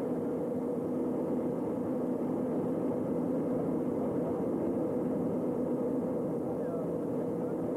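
The twin turboprop engines and propellers of a Beechcraft King Air 200 droning steadily in flight, heard inside the cabin: an even hum with two constant tones, one low and one about twice as high.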